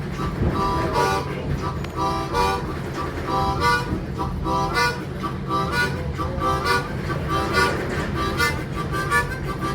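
Harmonica played as a train imitation, 'chugga chugga': quick repeated chords in a steady chugging rhythm, over a steady low hum.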